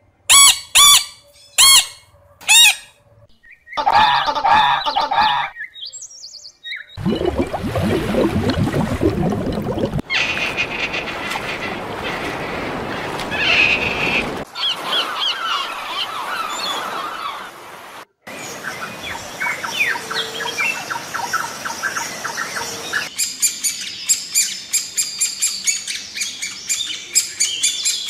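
A string of different short animal-sound clips, mostly birds calling and chirping. There are four loud calls in the first few seconds, and near the end an even run of short notes comes at about four a second.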